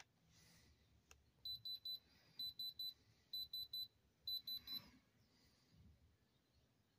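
Handheld electronic diamond tester beeping with its probe pressed to a rock: four quick runs of three or four short, high beeps over about three seconds.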